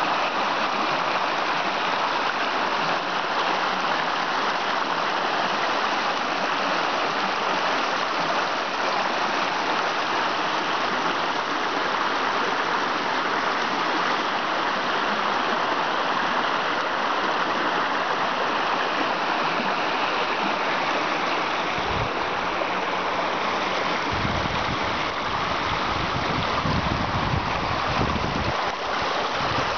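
Small rocky forest creek rushing and splashing over stones in a steady wash of water noise. Low rumbles join it about three-quarters of the way through.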